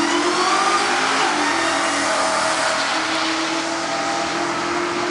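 Two cars accelerating hard down a drag strip on a quarter-mile pass. Their engine pitch rises and drops back at each gear change.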